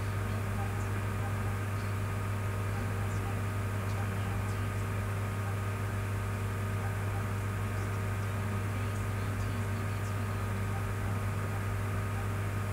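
Steady low hum with a hiss over it and a few faint steady tones, unchanging throughout: background noise of the recording.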